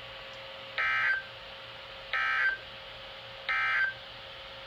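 Emergency Alert System end-of-message code: three short, identical bursts of buzzy digital data tones about 1.3 seconds apart, the 'NNNN' signal that closes a weather warning broadcast.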